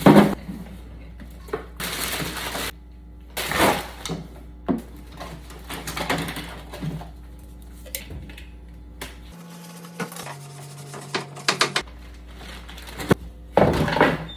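Frozen food containers and packages being pulled out of a freezer and set down: irregular knocks, clatters and rustling, with a sharp knock at the start and a loud cluster of clatters near the end.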